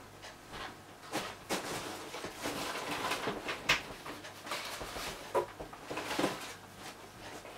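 Rummaging: rustling, clicks and a few sharper knocks of objects being picked up and moved about, the sharpest a little under four seconds in.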